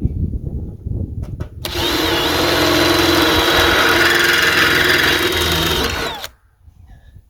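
A handheld power tool runs steadily for about four and a half seconds, starting about a second and a half in. Its motor whine rises as it spins up and falls as it stops. Low rumbling and a few knocks come before it.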